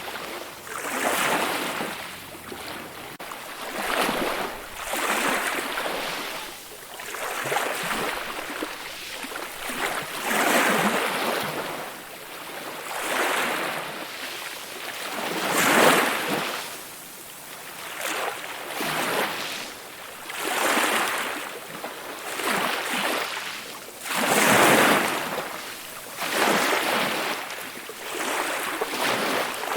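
Calm ocean waves washing in, each wave a swell of surf noise that rises and falls about every two to three seconds, with little deep rumble. The biggest waves come about halfway through and again near the end.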